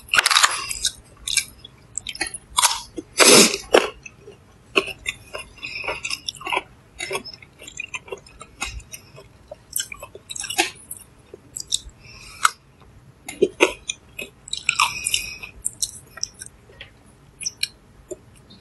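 Close-up crunchy bites and chewing of a crisp fruit slice, in irregular bursts with pauses between, loudest near the start and about three seconds in.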